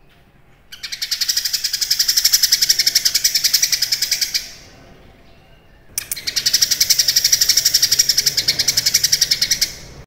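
A caged cucak kinoi (leafbird) singing in two long bouts, each a fast, even trill of high notes. The first starts just under a second in and stops about halfway, and the second starts near six seconds and runs almost to the end.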